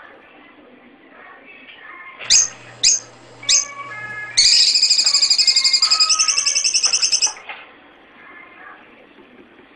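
A white Asian house shrew (curut) calling: three short, sharp rising chirps about half a second apart, then a loud, high, rapidly pulsing bird-like trill about three seconds long.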